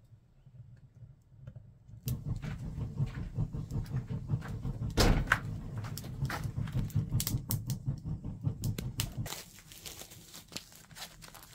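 Wood fire crackling inside a ring-topped wood cook stove: many sharp crackles over a low rumble, with one heavier knock about five seconds in. It turns quieter near the end, with lighter, scattered crackles.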